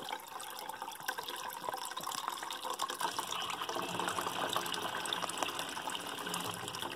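Grape juice pouring from a wine kit's plastic bag into a bucket of water: a steady splashing pour, a little louder midway.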